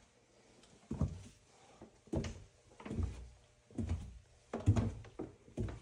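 Footsteps going down basement stairs: about six heavy, low thuds at a steady walking pace, each a little under a second apart.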